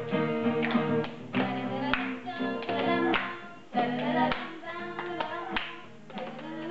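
Guitar strumming chords in a steady rhythm, each stroke ringing on under the next.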